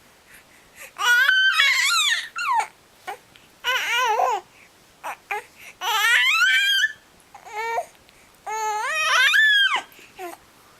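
Several high-pitched, wavering crying calls, each sliding up and down in pitch, with short pauses between them.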